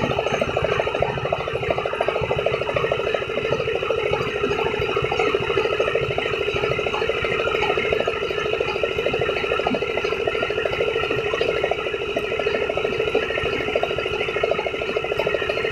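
Winnowing blower fan running steadily with a fast, even rattling hum as paddy is poured in front of it to blow off the chaff.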